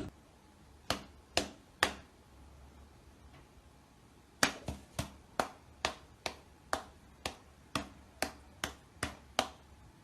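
Sharp taps or clicks: three about a second in, then a run of about a dozen more at roughly two a second from about four seconds in.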